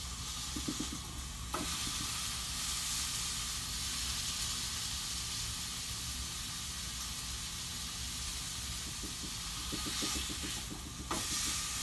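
Pieces of beef roast sizzling as they sear in a hot pan. The sizzle gets louder about a second and a half in and drops off just before the end.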